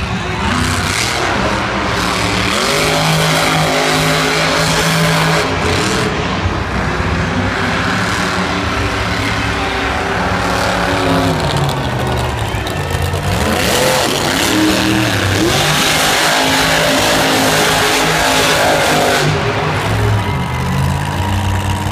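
Grave Digger Legend monster truck's supercharged V8 engine, loud throughout, revving up and easing off again and again as the truck accelerates and turns across the dirt.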